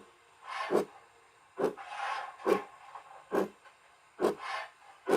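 A model BR 9F steam locomotive's DCC sound decoder playing recorded steam exhaust chuffs through the model's small speaker. The chuffs come in a slow, even beat, about six of them, a little more than one a second. There is a bit of rattle from the tender body, which is not yet screwed down.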